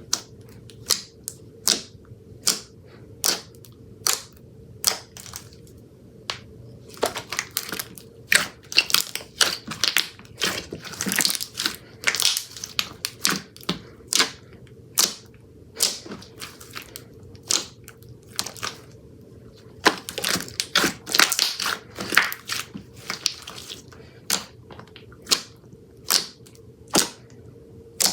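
Slime being poked and squeezed by hand, giving sharp pops and clicks at irregular intervals, with two stretches of faster crackling.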